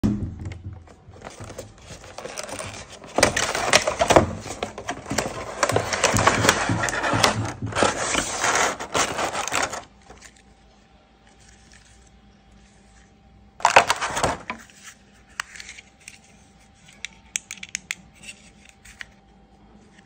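Clear plastic packaging crinkling and crackling as a toy is pulled out of it, dense and loud for about the first ten seconds. After that it is much quieter, with one short burst of crinkling about fourteen seconds in and scattered light clicks and taps of handling.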